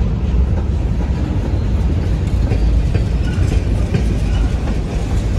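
Freight train's covered hopper cars rolling past close by: a loud, steady rolling noise of steel wheels on rail, with faint clicks now and then.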